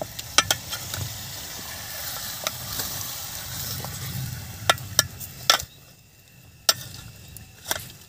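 A steel ladle stirring chicken pieces in a steel pot over a wood fire, with irregular sharp clinks and scrapes of metal on metal over a low sizzle. The stirring eases off briefly about six seconds in.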